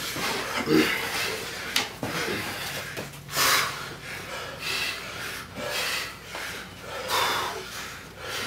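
Heavyweight boxers sparring: repeated sharp exhales through the nose with their punches, with dull glove thuds and shoes scuffing on the mat.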